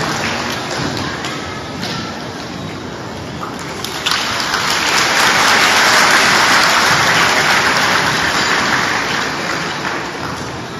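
Audience applauding, swelling about four seconds in and then slowly dying down.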